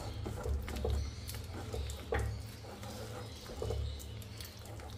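A hand squeezing and kneading thick, sticky batter of soaked semolina, mashed banana and flour in a steel bowl: irregular wet squelches and slaps, over a low steady hum.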